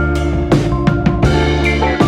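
Background music with a steady drum beat and a bass line under sustained melody notes.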